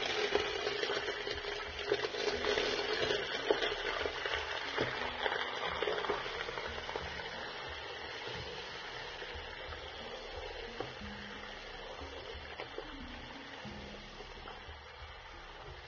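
Raw bone-in meat sizzling in hot cooking oil in a pot as it is tipped in and stirred with a spatula, with a few knocks of the utensil. The sizzle is loudest at first and gradually dies down.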